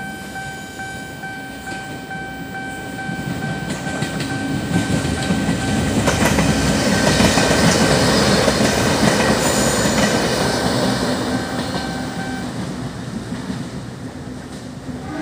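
A level-crossing alarm sounds a steady electronic tone while a diesel train passes. The train's engine and wheel clatter build to a peak near the middle and fade away. The crossing alarm cuts off about three seconds before the end.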